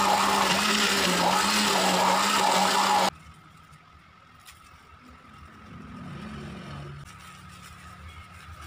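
Turbo EHM 899 electric blender's motor running with a full jug of guava juice, then cutting off suddenly about three seconds in. Faint handling sounds follow as sugar is poured into the open jug.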